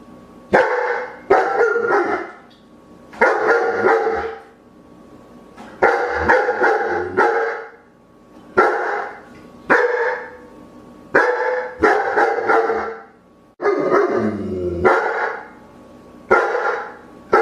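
A dog barking over and over, loud full barks coming singly or in quick runs of two or three, with short pauses between.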